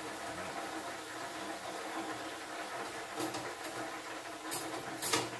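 A steady background hum, with three short metallic clicks in the second half as the wire fryer basket and its hook knock against the stainless steel fryer.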